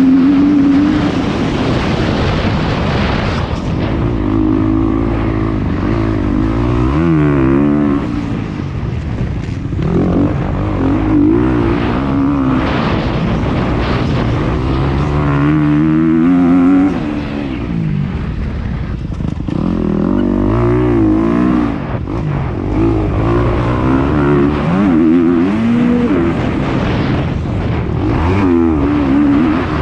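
Motocross dirt bike engine revving hard, its pitch climbing and dropping again and again as the rider opens and closes the throttle and shifts.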